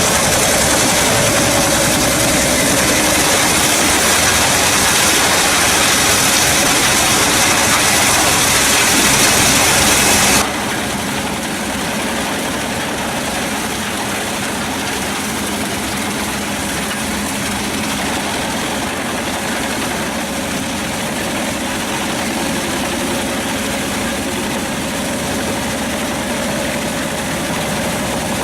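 Pezzolato PTH 900 M drum wood chipper running on its Scania DC09 five-cylinder diesel engine, a steady heavy machine sound. About ten seconds in, a loud hiss suddenly drops away and the sound becomes quieter.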